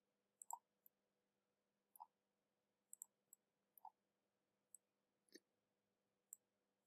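About a dozen faint computer mouse button clicks at irregular intervals, over a faint steady electrical hum.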